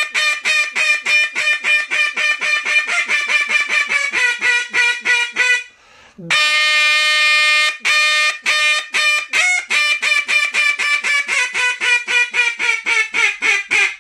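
Mouth-blown duck call sounding a hail call (high ball): a long run of loud, rapid quacking notes, about five a second, starting high and tapering down in pitch. About six seconds in come two long, drawn-out notes, then a second fast run that again starts high and tapers down.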